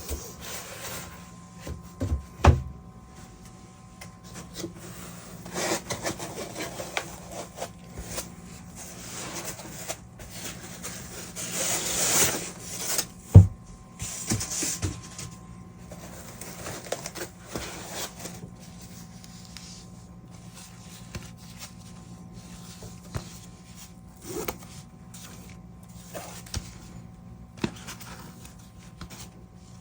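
Hands handling packaging: irregular rubbing, scraping and rustling, with a sharp knock about thirteen seconds in and scattered lighter ticks after it.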